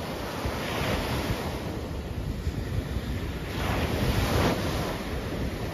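Ocean surf breaking and washing up the beach, with wind buffeting the microphone. The wash swells about a second in, then louder a little past the middle as a wave surges in.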